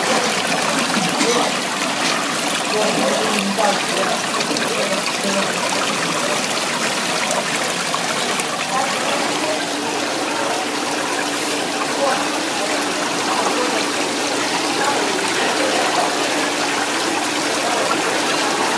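Running water trickling and splashing steadily over sea squirts in a plastic basket as they are rinsed and rubbed by hand.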